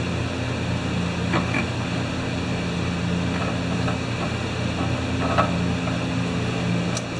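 Steady low electrical hum, with a few faint clicks of pliers on the chainsaw's metal parts.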